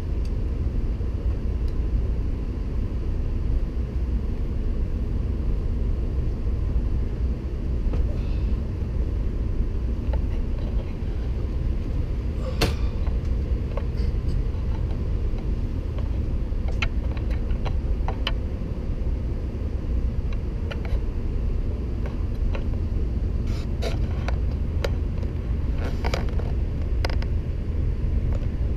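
Steady low rumble inside a Shinkansen carriage standing at the platform, with scattered sharp clicks and knocks in the second half.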